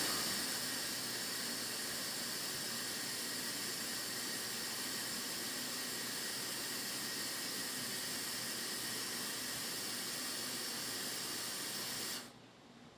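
Water running steadily from a kitchen tap into a pot, an even hiss that cuts off suddenly near the end.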